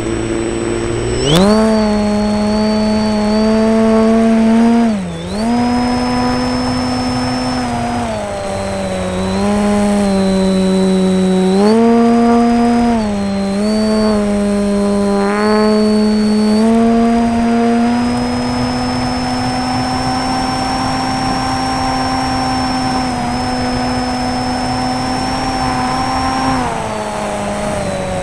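Foam model airplane's electric motor and propeller heard from on board, whining steadily and stepping up and down in pitch as the throttle is changed, with a sharp jump in pitch about a second in and a brief dip a few seconds later.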